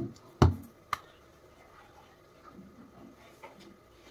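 Floury hands rubbing together, a soft dry scuffing, with a sharp thump about half a second in and a light tap just before a second in.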